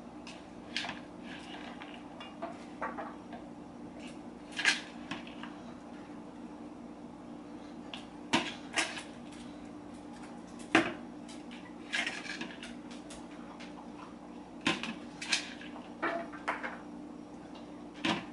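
A mixing bowl and a cooking pot clicking and knocking against each other and the counter as chopped kale is moved by hand from one to the other: about a dozen scattered light knocks at irregular intervals, over a steady low hum.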